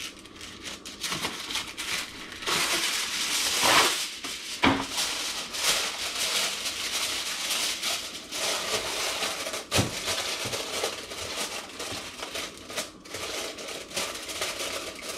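Aluminum foil being pulled off the roll, torn at the box's cutter edge, then crinkled and pressed down around the rim of a baking dish. The loudest rustling comes a few seconds in, with a few sharp clicks later.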